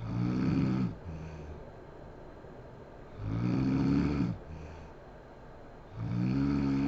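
A sleeping woman snoring loudly: three snores about three seconds apart, each a deep pitched snore followed by a shorter, quieter, lower sound.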